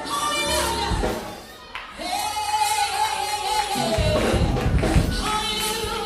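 Gospel worship singing with musical backing, including one long held sung note in the middle.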